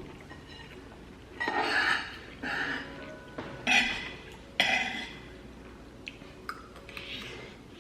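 A spoon scraping and clinking against a bowl in about five short strokes, the sound of food being scooped and mixed with rice while eating.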